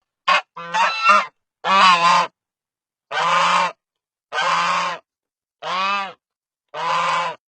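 A goose honking: seven calls with short silences between them. The first few come close together, and the last four are evenly spaced, each about half a second long.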